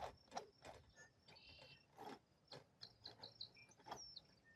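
Faint, scattered light clicks and knocks from handling the plumbing fittings, over a steady high-pitched insect trill.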